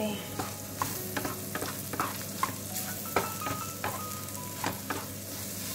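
Egg and mushrooms sizzling in oil in a frying pan while a wooden spatula stirs them, with irregular scrapes and taps of the spatula against the pan.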